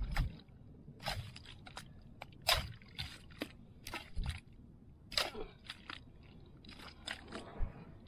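Long-handled spade cutting into and prising wet mudflat mud: a string of short, irregular strokes and scrapes of the blade in the sticky mud.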